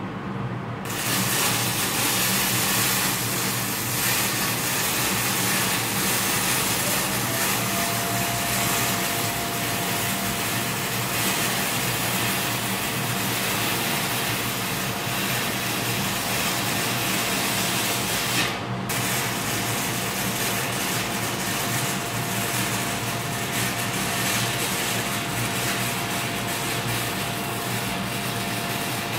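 Stick-welding arc from a 6011 electrode, run on a Diversion 165 welder, crackling and hissing steadily. It is struck about a second in and breaks off briefly about two-thirds of the way through before carrying on.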